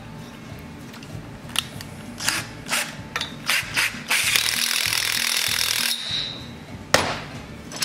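Cordless driver spinning a socket on the flywheel nut of a Suffolk Super Colt small engine, running steadily for about two seconds and then winding down. Before it come a few light metal clicks as the washer, nut and socket are fitted, and near the end there is one sharp clack.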